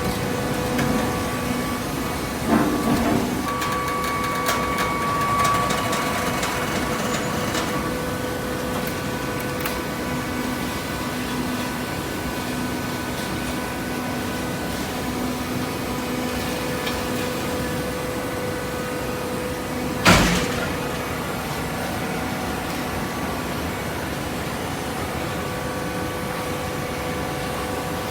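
Horizontal hydraulic cardboard baler running: a steady machine hum with several held tones, a short clatter a few seconds in, and one loud bang about two-thirds of the way through.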